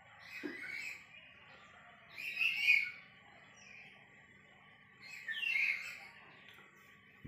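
A hungry tabby cat meowing, three short high calls about two and a half seconds apart, the middle one loudest. A soft thump about half a second in.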